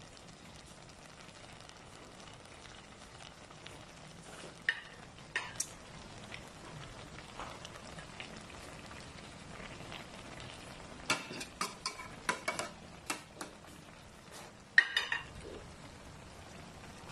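Jackfruit and coconut-milk stew simmering in an aluminium pan with a faint steady sizzle, broken by sharp clicks and scrapes of a spatula against the pan: a few early on, a quick run in the middle, and the loudest strike near the end.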